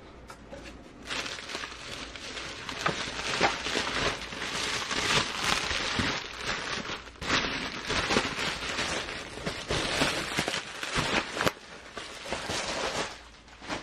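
Bubble-wrap bag and plastic packaging crinkling and rustling as they are handled. It is a dense run of small crackles with a few sharper clicks, starting about a second in and easing off near the end.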